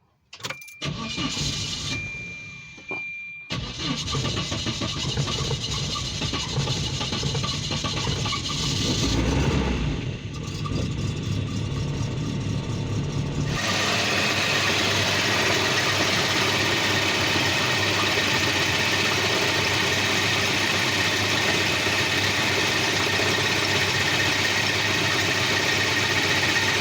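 1988 Volvo 240 GL engine cranking and starting, then running. A steady high tone sounds during the first few seconds. About halfway through, the sound changes abruptly to a steady, even running noise. The car has a hard-starting problem that the owner traced to a bad fuel pressure regulator.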